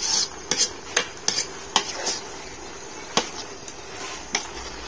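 Metal spoon clinking and scraping against an aluminium pot as bamboo shoots are stirred with curry paste, about eight irregular knocks.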